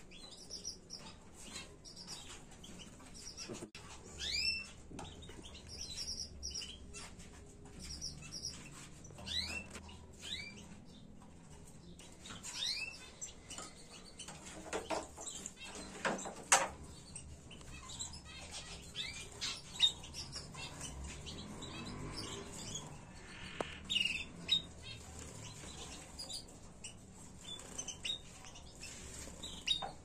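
Caged canaries chirping in short rising and falling whistled notes and brief quick trills, with wing flutters against the cage and a few sharp knocks about halfway through.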